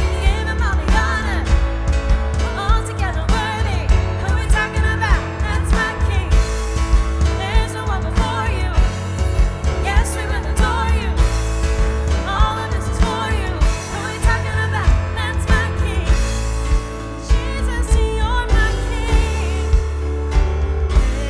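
Live worship band playing a song: drums, bass, synth and piano with singing over a steady drum beat.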